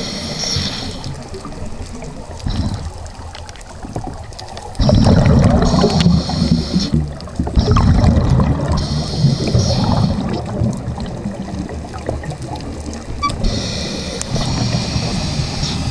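Scuba diver breathing through a regulator underwater. A hiss comes with each inhalation about every four seconds, alternating with the low gurgling rumble of exhaled bubbles.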